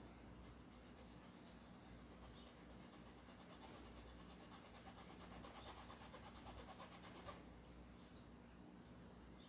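Faint, quick scrubbing of a paintbrush rubbing fabric paint into cotton dish-towel cloth, stopping about seven seconds in.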